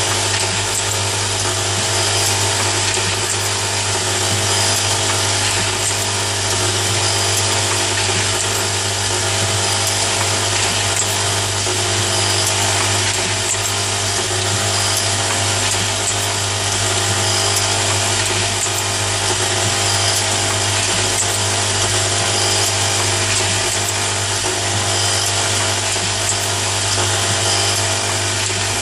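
Automatic nail polish filling and capping machine running: a steady mechanical hum and whine from its motors, with faint light ticks every few seconds as the table and capping head work.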